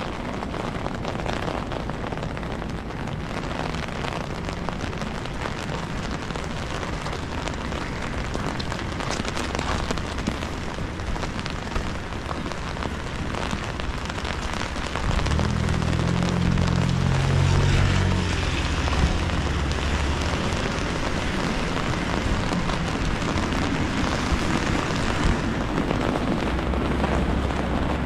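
Steady rain on a city street, an even hiss of drops. About halfway through, a low rumble joins and the whole sound gets louder.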